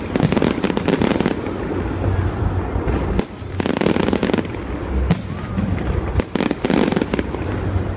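Aerial fireworks going off overhead: clusters of rapid crackling bangs near the start, in the middle and near the end, over a continuous low rumble.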